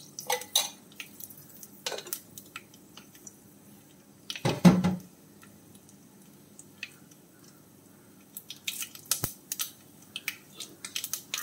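Mustard seeds popping and crackling in hot coconut oil: scattered sharp pops that come thicker near the end, showing the seeds have begun to splutter. One louder thump comes about halfway through.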